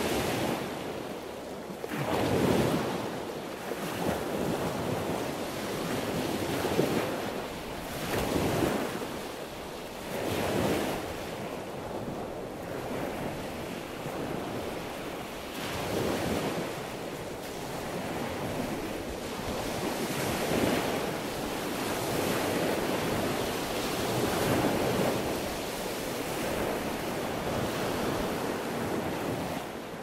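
Sea waves washing in and breaking, in surges that swell and fade every few seconds.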